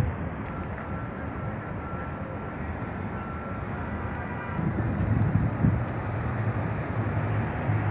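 Downtown street traffic noise: a steady hum of passing cars, with a faint thin whine in the first half and a louder low rumble from about halfway through.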